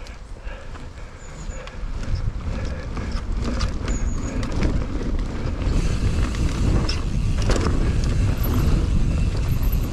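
Mountain bike ridden along a dirt trail toward a jump: wind rushing over the microphone, growing louder as the bike picks up speed, with scattered clicks and rattles from the bike over bumps.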